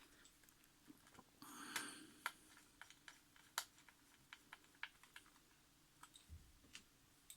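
Faint, irregular clicks of an OWON B35T multimeter's rotary selector switch being turned through its positions to test the repair, with a short handling rustle about a second and a half in.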